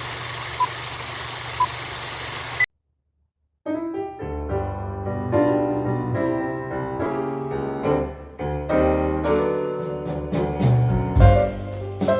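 Steady hiss with a few faint short beeps, cut off about two and a half seconds in; after about a second of silence, piano music with a bass line starts, with sharper drum-like beats coming in near the end.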